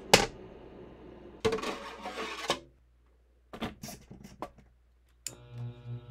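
Clicks and clattering on a small wind-tunnel turbine test rig, in short pieces broken by cuts, as one 3D-printed turbine is replaced by another. Near the end a low hum with a fast, even pulsing starts.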